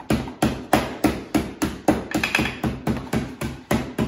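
Wooden rolling pin pounding Butterfinger candy bars in a plastic bag on a stone countertop, crushing the candy: a loud, even run of hard knocks, about three a second.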